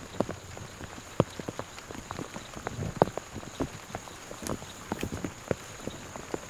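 Scattered, irregular light taps and clicks in wet brush, over a faint steady high-pitched insect drone.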